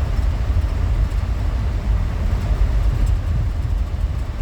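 Minivan driving, heard from inside the cabin: a steady low road and engine rumble.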